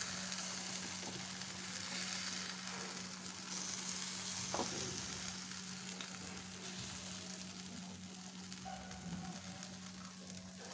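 Vegetable chila batter sizzling in ghee on a hot tawa while a metal ladle spreads it out; the sizzle slowly softens.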